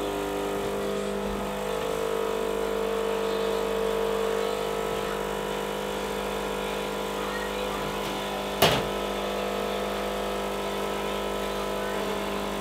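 Rancilio Silvia espresso machine's vibratory pump humming steadily as it pushes water through the coffee puck during a shot that is running a little slow. A single sharp click about two-thirds of the way through.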